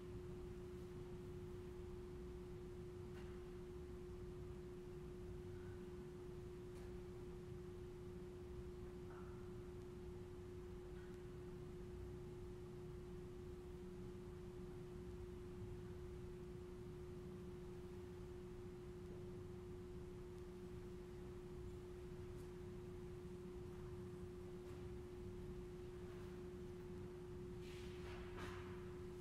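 A steady single-pitched hum over a low room rumble, with a few faint clinks and a brief rustle near the end.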